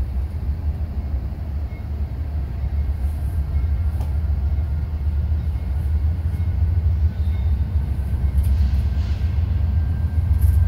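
GE Dash 9-44CW diesel locomotive approaching at the head of a freight train: a steady low rumble that grows slightly louder as it nears.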